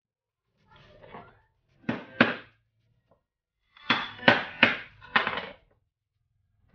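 A knife blade driven through eel flesh and bone on a wooden cutting board by blows from a hammer on its back, each strike a sharp ringing knock: two blows close together about two seconds in, then four more a couple of seconds later.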